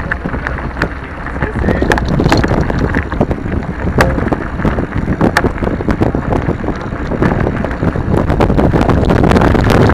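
Wind buffeting the microphone of a bike-mounted camera on a mountain bike's dirt-trail descent, with tyres rolling on the dirt and many sharp knocks and rattles as the bike goes over bumps. The noise grows louder toward the end as speed picks up.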